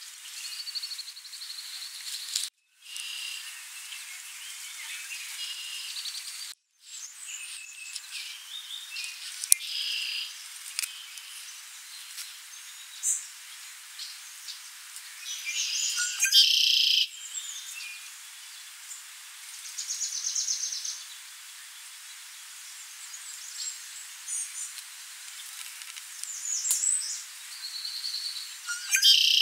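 Several songbirds singing and calling over one another, with chirps, whistled phrases and fast dry trills. The sound cuts out completely twice for a moment in the first seven seconds.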